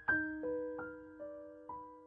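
Background music: a slow, gentle piano melody, single notes struck about every half second, each ringing on and fading.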